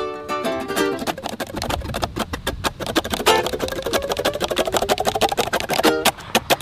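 Background music: a bright tune of fast plucked-string notes, with a held melody line sliding upward about halfway through.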